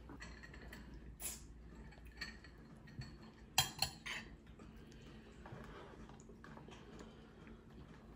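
Faint, light clinks of a serving utensil against a china plate as gravy is drizzled over a plated roast dinner: a handful of separate taps, the loudest pair about three and a half seconds in.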